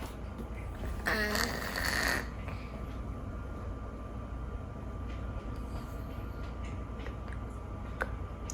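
A cat snoring through a blocked nose, with one loud whistling squeak about a second in whose pitch dips and then rises again. The whistle comes from the cat's chronically stuffy nose.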